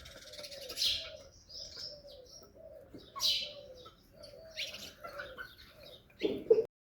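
A pigeon cooing softly in short repeated phrases, with a few brief rustling bursts, the loudest near the end.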